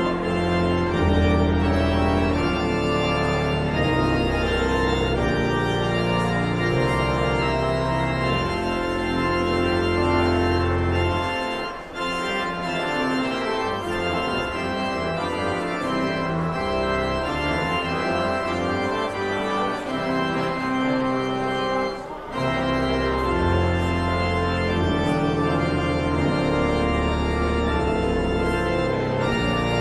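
Pipe organ playing sustained chords over deep pedal bass notes. The bass falls away through the middle stretch, which is set off by two brief breaks, then returns.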